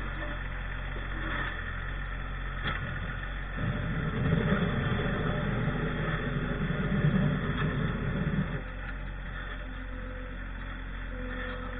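Tractor engine running steadily, with a louder, rougher rumble for about five seconds in the middle as it works.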